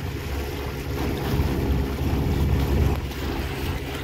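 1982 Evinrude 15 hp two-cylinder two-stroke outboard running at a steady speed, pushing an inflatable dinghy across a lake, with wind buffeting the microphone.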